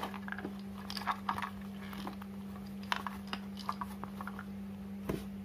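Handling noise as a nylon zippered pouch is lifted out of a cardboard box: scattered short rustles and taps, over a steady hum.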